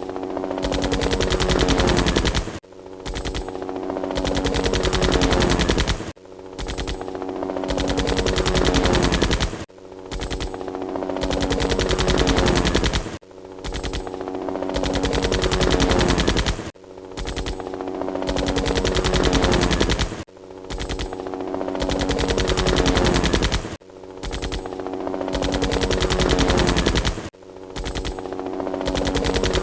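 Helicopter rotor chop: rapid, even pulses with a falling whine beneath. The same few-second stretch repeats as a loop about every three and a half seconds, each time growing louder and then cutting off abruptly.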